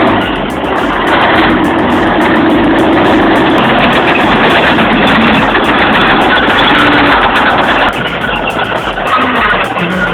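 Heavy diesel engines of a Kirovets K-701 tractor and a Chetra crawler dozer running hard during a tow; a loud, continuous engine noise.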